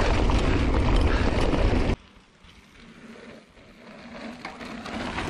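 Wind buffeting the microphone and tyre rumble from a mountain bike riding fast down a dirt trail, heard from the rider's own camera. About two seconds in the sound cuts off abruptly to a much quieter recording, in which the noise of the bike's tyres on dirt grows louder as it approaches.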